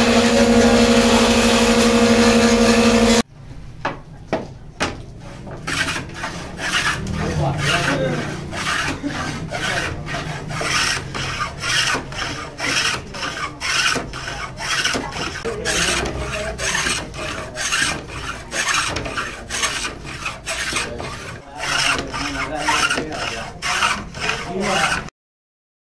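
A workshop machine motor runs with a steady hum for the first few seconds and cuts off abruptly. Then a metal bench plane is pushed along a wooden cue blank in quick, regular strokes, each one a short rasping shave of wood. The strokes stop suddenly shortly before the end.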